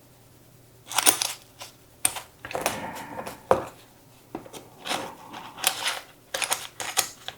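Small metal tools being handled and slipped into the pockets of a fabric sling bag: a string of irregular light clicks, taps and rustles, with one sharper knock about three and a half seconds in.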